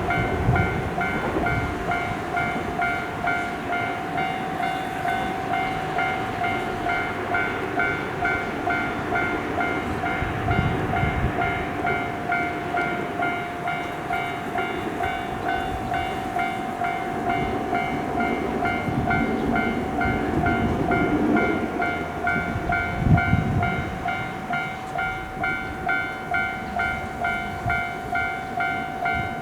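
Japanese level-crossing alarm ringing its repeated electronic "kan-kan" bell without a break, while a train runs past with low rumbling from its wheels.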